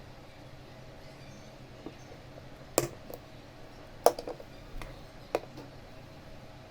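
Sharp snips of a cutter trimming the ends of Cat6a cable conductors: three clear cuts, a little over a second apart, with a few fainter ticks of handling between.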